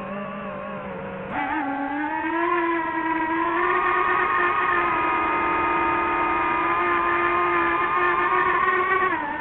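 DJI FPV drone's motors and propellers whining at high RPM. About a second in the pitch jumps up and the whine grows louder as the motors speed up, holding a high, slightly wavering whine before falling back just before the end.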